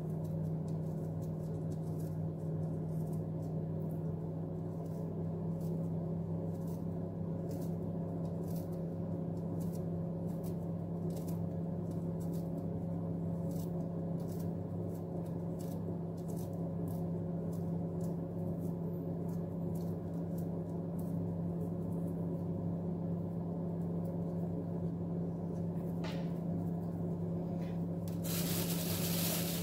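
Steady kitchen-appliance hum with a low tone and overtones, under faint, irregular clicks of a clove of garlic being cut into tiny pieces by hand over a bowl. A short hiss comes near the end.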